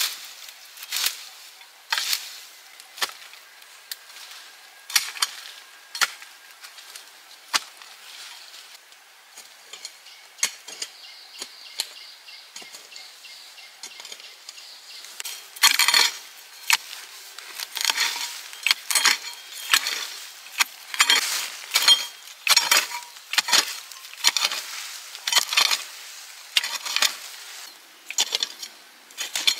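Metal utensil clinking against cookware in sharp, irregular strikes, sparse at first and coming much faster about halfway through.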